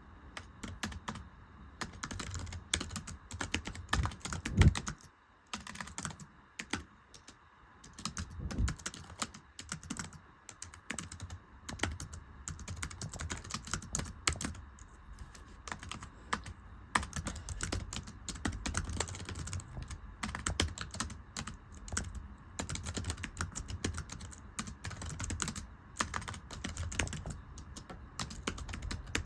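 Fast, irregular typing on a very thin, low-profile computer keyboard, its keys making light slapping clicks. Typing pauses briefly a few times, and a single louder knock comes about five seconds in.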